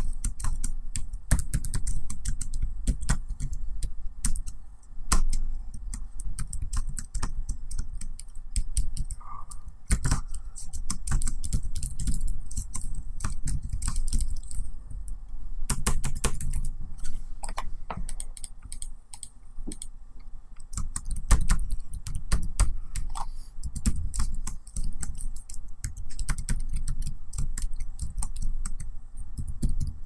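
Typing on a laptop keyboard: a continuous stream of quick key clicks at an uneven pace, broken by a few short pauses.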